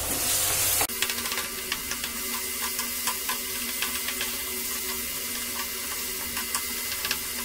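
Potato filling sizzling in hot oil in a nonstick kadai while a wooden spatula stirs and mashes it, with frequent light clicks and scrapes of the spatula against the pan.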